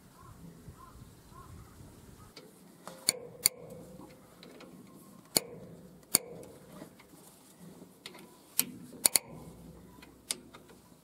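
Sharp metallic clicks and clinks, about eight spread irregularly over several seconds, some with a brief ring, as a socket wrench works the rocker-arm shaft bolts on a Nissan SD22 diesel engine's cylinder head.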